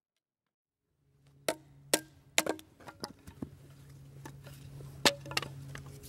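Hatchet splitting kindling off a stick of firewood on a chopping log: a run of sharp wooden knocks and cracks at uneven intervals, starting about a second in, the loudest about a second later and again near the end. A steady low hum lies underneath.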